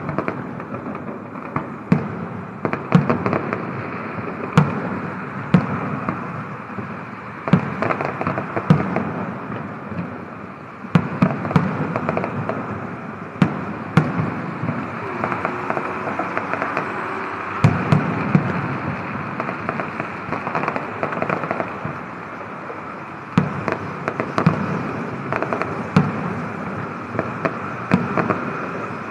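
Fireworks display: a steady string of sharp bangs at irregular intervals, often more than one a second, over continuous crackling from the bursting shells.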